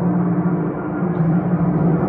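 Heavy-weight 90 cm wind (feng) gong ringing in a steady, dense, low wash of tone, played with a soft mallet, with no separate strikes standing out.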